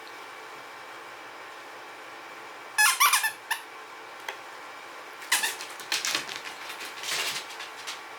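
Dog's squeaky toy squeaking loudly about three seconds in, the pitch wavering, with a shorter squeak just after. Rustling and scuffling follow for a couple of seconds.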